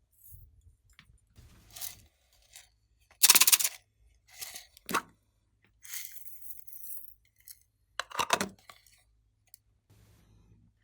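Glossy slime being mixed and handled by hand, with irregular sticky squelches and sharp clicking, clinking sounds. The loudest come a little over three seconds in and again about eight seconds in.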